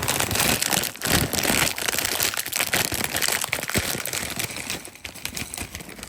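Plastic bag holding frozen fried rice crinkling and crackling loudly as it is handled, with many sharp crackles.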